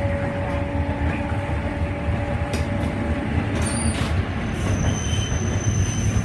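Okayama Electric Tramway tram heard from inside while running: a steady low rumble of wheels on the rails, with a humming tone that stops about halfway and a couple of knocks. A faint high squeal of the wheels comes in the second half.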